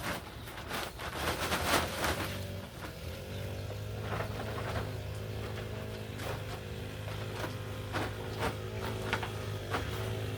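Hands digging and rustling through loose soil to uncover potatoes, loudest in the first couple of seconds, then scattered clicks and scrapes. Steady background music runs under it from about three seconds in.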